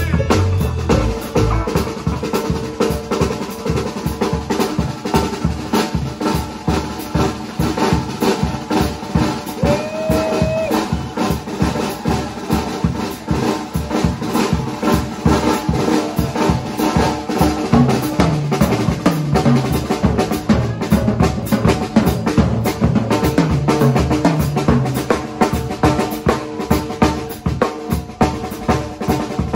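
Live rock band playing, with a drum kit driving the sound: steady kick, snare and cymbal strokes under electric guitar and bass guitar.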